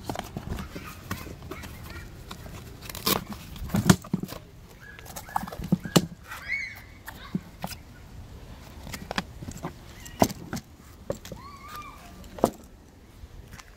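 A fabric rolling tool bag being handled, giving scattered knocks and clicks from its lid and pockets. A few short squeak-like tones come around the middle and again near the end.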